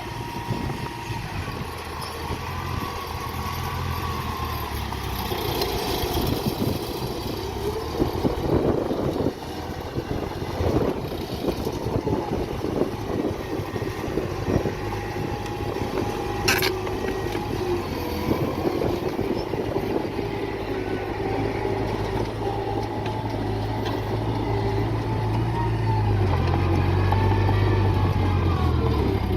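Heavy diesel construction machinery working soil, its engines running steadily, with a single sharp metallic clank a little past halfway. The low engine sound grows louder over the last few seconds.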